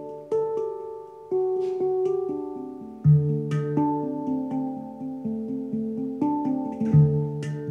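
A Hang (steel handpan) played with the fingertips: a melody of struck notes that ring on and overlap. A deep low note is struck about three seconds in and again near the end.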